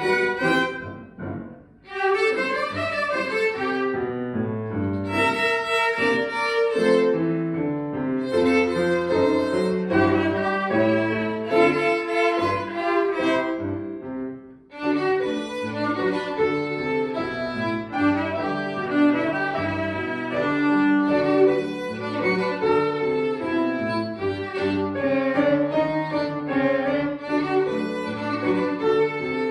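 Three violins with piano accompaniment playing a lively ragtime. The music breaks off briefly about a second and a half in and again near the middle, then carries on.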